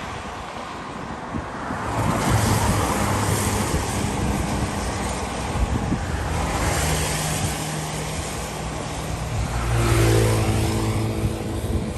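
An engine running, swelling louder about two seconds in and again near the end, over a steady rushing noise.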